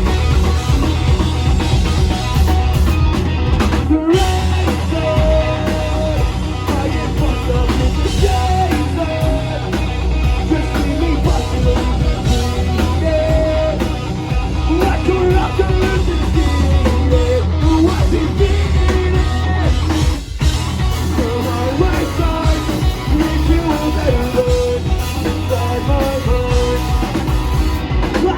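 Rock band playing live at full volume: drum kit, electric guitars and bass, with a wandering melody line over them. The band cuts out for a moment about twenty seconds in.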